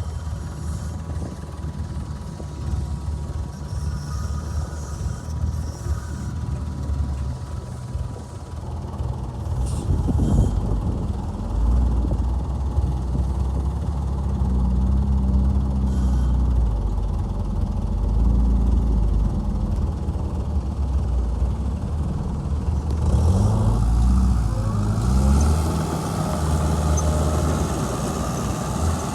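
Heavy diesel engine of earthmoving equipment running. It gets louder and deeper about ten seconds in as it comes under load, and its pitch then rises and falls with the throttle.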